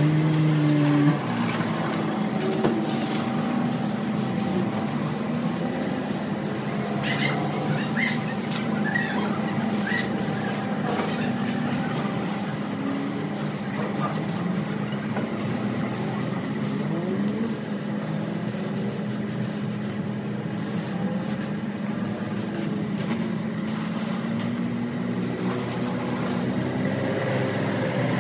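Gravity-feed paint spray gun driven by compressed air, hissing as it sprays primer onto a steel table frame. A steady hum runs underneath.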